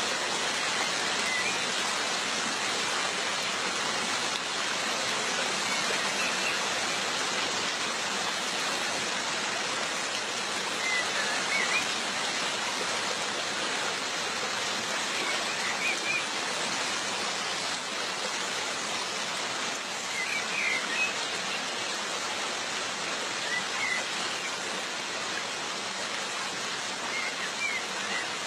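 Waterfall: a steady rush of falling water, with a few faint short high sounds now and then.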